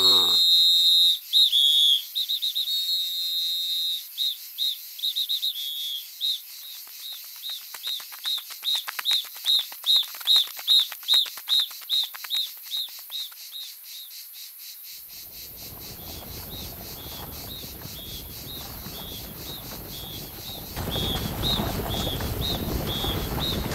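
A cartoon ant's high-pitched whistling: one long whistle, then a run of short peeps about two a second that grow fainter. From about two-thirds of the way in, a rustling hiss rises and gets louder near the end.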